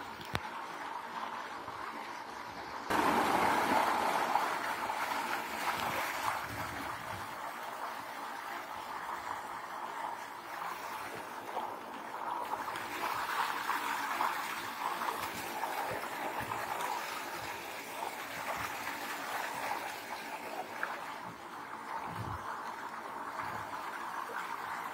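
Heavy rain pouring down as a steady hiss of falling water, growing louder about three seconds in.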